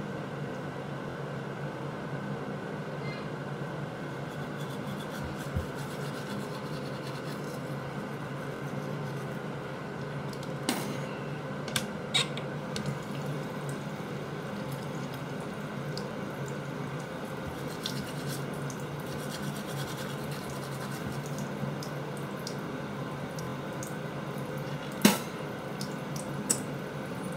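Teeth being brushed with a toothbrush and foaming toothpaste over a steady background hiss, with a few sharp clicks, the loudest near the end.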